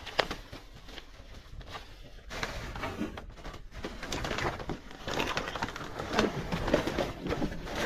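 Thin plastic garbage bags rustling and crinkling as gloved hands dig through and pull at them, a dense irregular crackle that grows louder after about two seconds.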